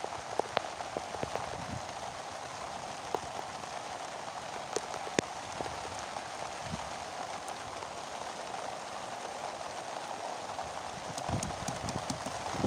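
Rain falling: a steady hiss with scattered sharp taps of drops, a cluster of them in the first second and a couple more around the middle. Low rumbling bursts come in near the end.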